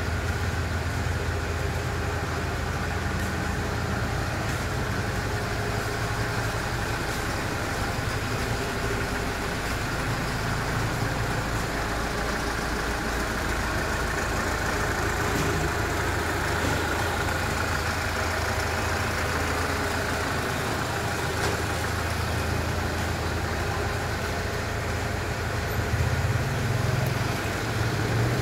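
Hyundai Terracan JX290's 2.9-litre CRDi turbodiesel engine idling steadily, a low hum that grows a little louder near the end.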